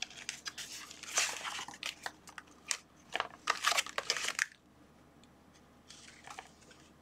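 Clear plastic blister packaging crinkling and crackling as it is pulled from its box and handled, in bursts for the first four and a half seconds, with a faint rustle again near the end.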